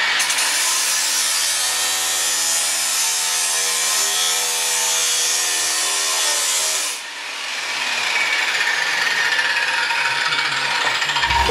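Powerplus 900W angle grinder cutting through sheet metal: a loud grinding screech over a steady motor whine. About seven seconds in the cut breaks off and the grinder runs on unloaded, its pitch slowly falling.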